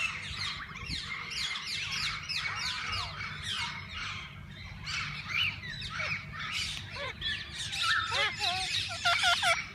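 Flock of parakeets chattering, a dense stream of quick falling chirps and squawks, with a run of lower, arching calls repeated near the end.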